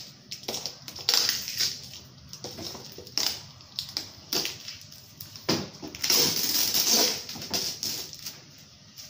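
Packing tape being cut with a box cutter and peeled off a shipping box: crackling, ripping spurts with small clicks, the longest about six seconds in.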